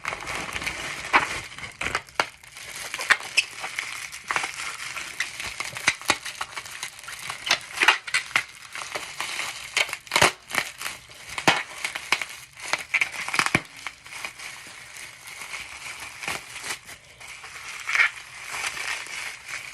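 Crinkly packaging of a mailed package being handled and torn open by hand: irregular crumpling and crackling with sharp clicks throughout.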